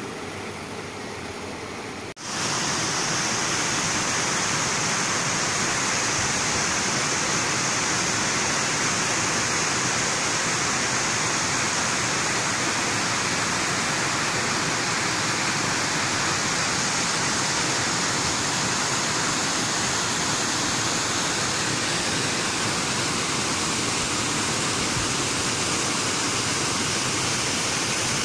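Shallow river water running over rocks. About two seconds in, a sudden cut to the louder, steady rush of a high waterfall pouring over a cliff into a pool.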